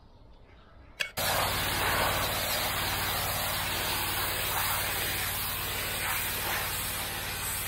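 A pressure washer starts spraying about a second in, just after a click. Its jet gives a steady hiss over the low, even hum of the machine's engine.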